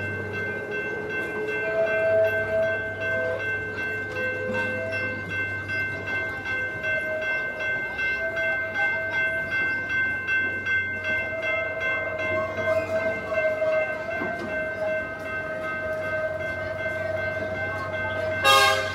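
Small park passenger train's open coaches rolling slowly past on steel wheels, with mid-pitched tones that come and go over a steady low hum. A brief loud sound near the end.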